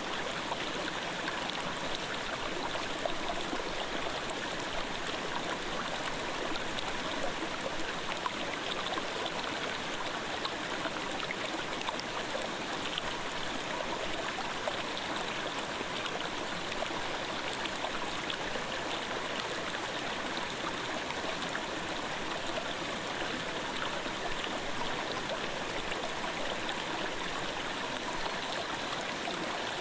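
Clear mountain gorge stream flowing: a steady, even murmur of running water.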